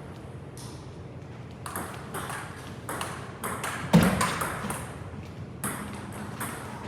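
Celluloid-type table tennis ball clicking against bats and table during play: a quick, irregular series of sharp pings with a high ring, the loudest a hard hit with a heavier thud about four seconds in.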